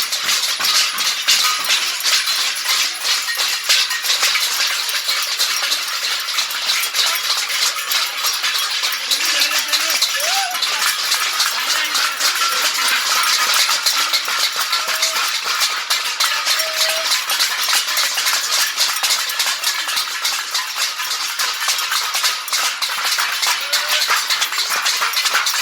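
Many people clapping and beating metal thalis (plates) together: a dense, unbroken clatter of claps and metallic clinks.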